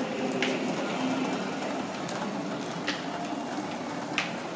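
Wheeled suitcases rolling over a hard tiled floor, a steady rumble broken by a few sharp clicks.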